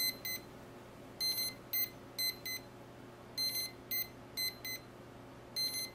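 Brushless motors beeping, driven by their electronic speed controllers while connected to the flight controller. The beeps are short and high-pitched and come in small clusters about once a second, several sources a little out of step.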